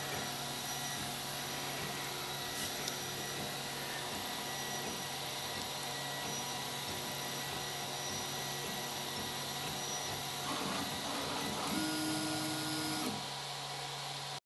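RepRapPro Huxley 3D printer running mid-print: the steady whirr and hum of its stepper motors as the hot end lays down plastic. Near the end it gets louder, with a steady higher whine for about a second.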